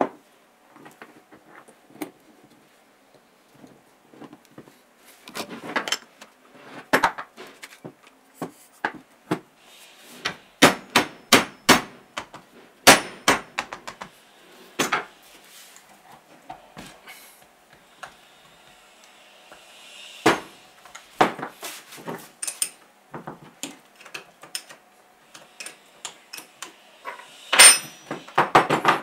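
Wooden mallet knocking a steel rod through a power-drill gear housing to drive out a shaft or bearing. It makes a run of irregular sharp knocks, heaviest in the middle, mixed with lighter clinks of metal parts being handled and set down on the bench.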